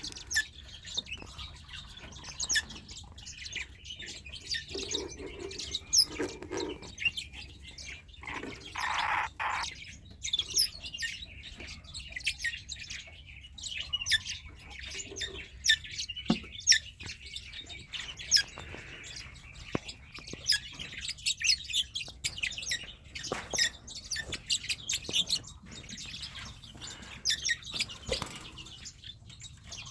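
Red-rumped parrots chirping: a near-constant stream of short, high tweets, with a louder, longer call about nine seconds in.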